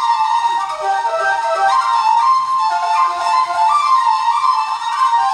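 Two tin whistles in F playing a traditional dance tune together, a quick run of notes moving up and down.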